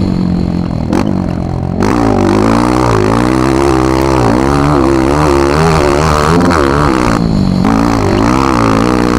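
Honda CRF230F dirt bike's air-cooled single-cylinder four-stroke engine, running at a steady pitch for about two seconds, then revving up and down again and again as the rider works the throttle along a dirt track.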